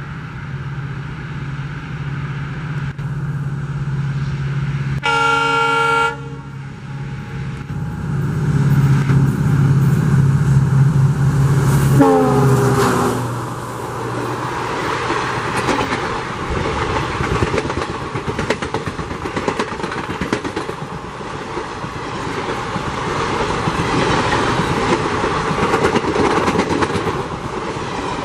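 Approaching WDP4-class diesel-electric locomotive running with a steady low engine drone, sounding its horn once for about a second. Near the middle a second horn note drops in pitch as it passes, and then passenger coaches roll by with a continuous clatter of wheels over the rail joints.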